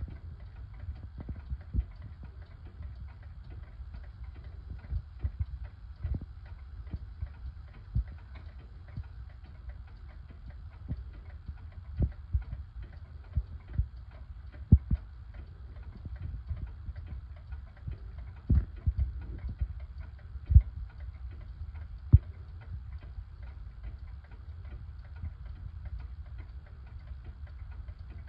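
Antique New Haven pendulum wall clock ticking, the ticks coming unevenly, with a few louder clicks in the second half, over a low hum.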